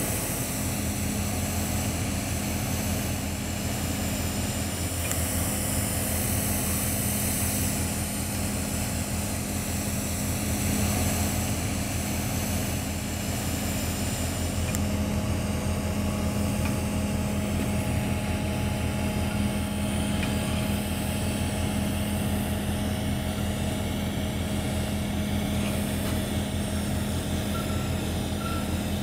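Steady hum and hiss of a TIG welding arc at 175 amps from a Miller Dynasty 280, held on a walking-the-cup root pass. A reversing beeper starts beeping near the end.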